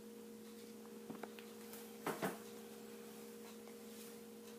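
A steady electrical hum at two pitches, with two faint short sounds about one and two seconds in.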